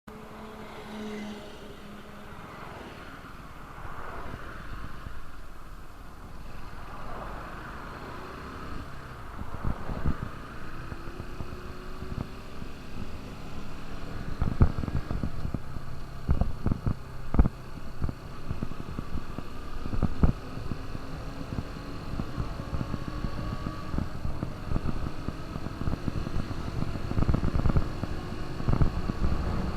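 KTM RC 200's single-cylinder four-stroke engine running on the move, its pitch rising and falling with the revs in the first ten seconds and then climbing slowly as the bike gathers speed. From about halfway, wind buffets the microphone in repeated short thumps.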